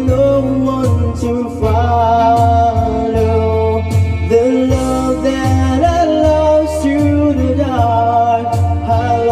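Karaoke backing track of a slow ballad playing through a videoke machine's speakers, with a bass line and a sustained, gliding melody line.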